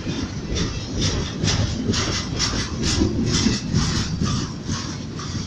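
Ferromex freight train rolling past with a low rumble, its wheels clacking over rail joints about three times a second from about a second and a half in until near the end.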